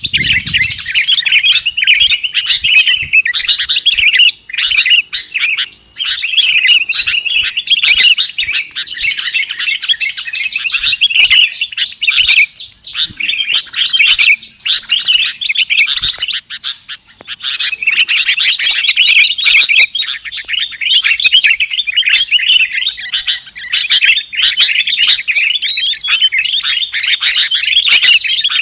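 Dense, continuous chirping and chattering of small birds, rapid overlapping notes with hardly a pause, from a bird-lure (pikat) recording meant to draw in sooty-headed bulbuls (kutilang).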